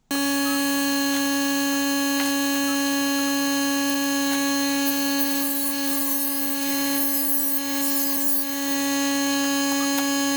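Electric power tool motor running at constant speed, a steady whine that cuts in suddenly. Between about five and eight seconds in it is joined by a fluttering high hiss.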